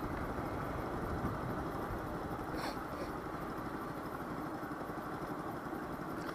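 Daelim Witty 100 carbureted small scooter running steadily under way, its engine and road noise making an even rumble, with a brief click about two and a half seconds in.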